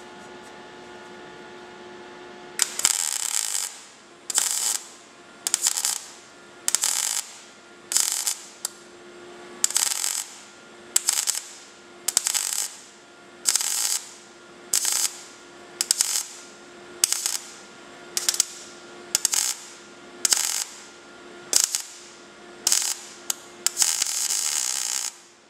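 MIG welder arc on car sheet-metal patch panel, struck in about eighteen short bursts roughly a second apart, with a longer burst near the end. The torch is pushed rather than dragged, to keep heat out of the panel behind the lapped patch and stop it spitting and blowing holes.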